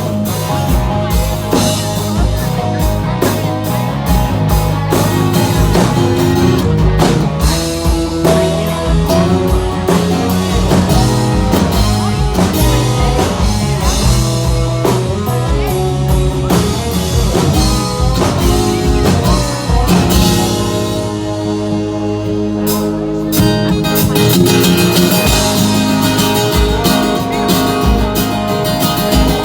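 A live country band plays an instrumental intro on guitars and a drum kit. About two-thirds of the way through, the drums drop out for a few seconds, then a hit brings the full band back in.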